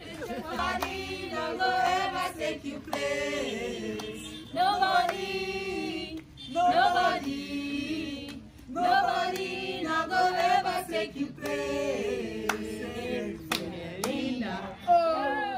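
A group of people singing together unaccompanied, in phrases broken by short pauses, with a few handclaps.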